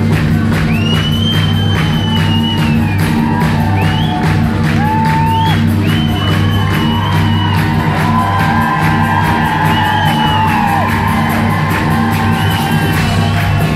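Live band playing an up-tempo song: a steady drum beat under a loud bass line, with high voices whooping and holding long sliding notes over it.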